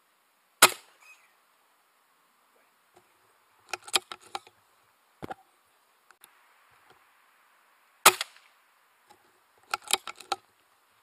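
Two air rifle shots, each a single sharp crack, about seven and a half seconds apart, the one about half a second in the loudest. Each is followed by a cluster of quieter clicks and taps.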